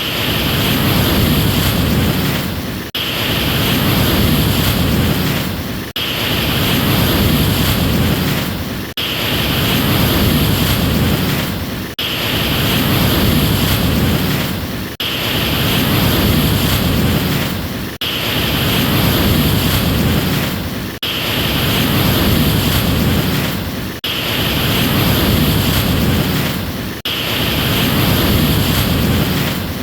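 Ocean surf, a steady rush of waves that dips briefly and starts over in the same shape every three seconds, like a short recording played on repeat.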